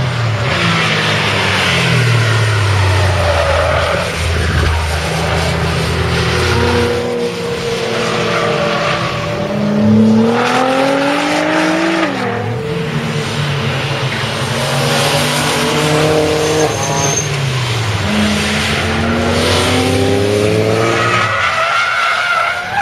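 Cars lapping a race circuit, their engines revving up through the gears, the pitch climbing and dropping back at each shift, over and over as cars come by. Tyres squeal at times.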